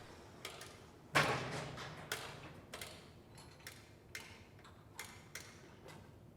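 A series of light clicks and taps at uneven intervals, with one louder knock that rings briefly about a second in.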